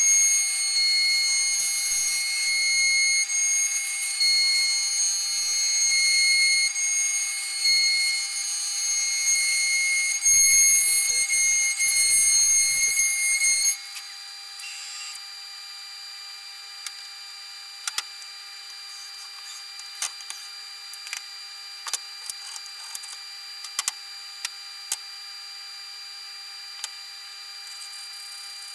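CNC router spindle cutting into oak: a loud, high-pitched whine with a stack of steady tones and rough cutting noise. About halfway through it cuts off suddenly, leaving a much quieter steady hum with scattered clicks.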